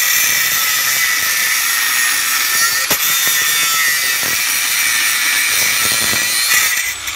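Hercules 4-1/2 in. 7-amp angle grinder with a thin cut-off disc cutting into a steel fence post: a loud, steady, high-pitched whine and grinding noise that cuts off just before the end.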